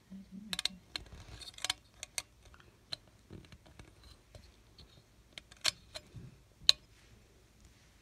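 Irregular light clicks and scratches of a wire and a small hand tool being worked at the screw terminals of a metal fire-alarm strobe mounting plate, with a couple of sharper clicks in the second half.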